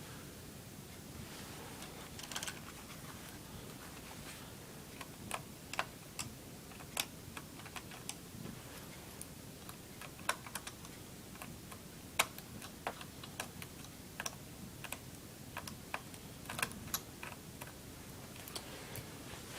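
Irregular light clicks and taps of a small screwdriver and screws being worked out of a laptop's plastic case, starting about two seconds in.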